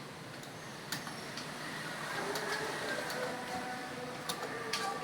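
Computer keyboard being typed on: scattered sharp key clicks over a steady low background hum.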